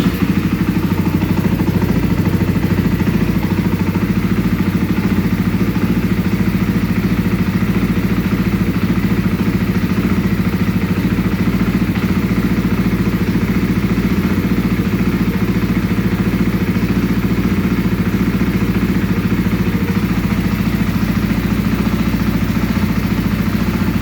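A 2022 KTM 500 EXC-F's single-cylinder four-stroke engine idling steadily.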